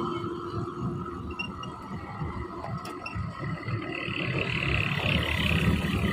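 Hino 500 truck's diesel engine pulling hard under load up a climb, a deep pulsing rumble with a whine above it that grows louder over the last few seconds.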